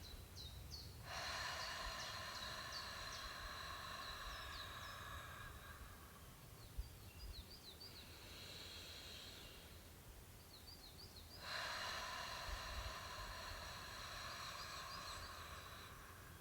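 A person breathes out a long, breathy healing sound twice, each lasting about four to five seconds, with a quieter stretch for the in-breath between them. Birds chirp faintly in the background.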